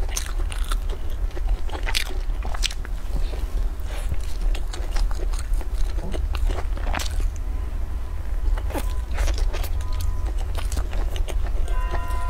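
Close-up eating sounds: biting into and chewing a crusty black roll with a flaky filling, with irregular sharp crunches and crackles over a low steady hum. Music with steady tones comes in near the end.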